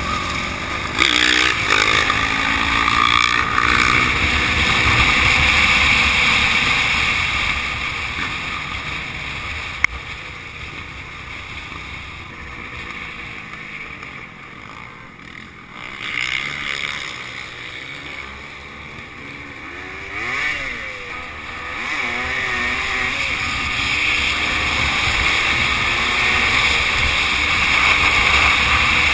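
Dirt bike engine running on the move, its pitch rising and falling with the throttle, under steady wind noise on the microphone. It drops quieter around the middle, then builds again toward the end.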